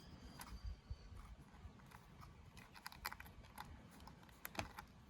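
Faint, scattered light clicks and taps of small metal parts being handled as piston rings are fitted onto a chainsaw piston, with a small cluster about three seconds in and another near the end.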